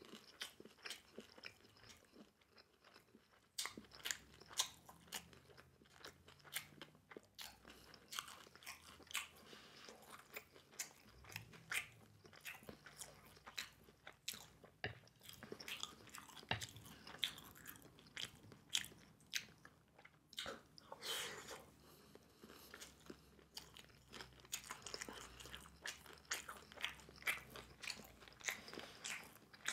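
Close-miked chewing of battered sweet and sour pork and rice: a steady run of short mouth clicks and crunches.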